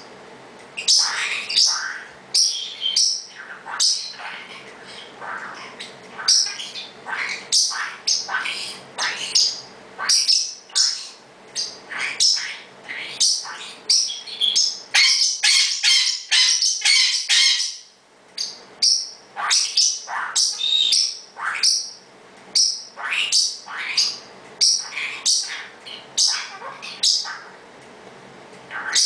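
Blue parrotlet making loud, sharp, repeated chirping calls, about one or two a second, with a dense run of rapid chatter about halfway through.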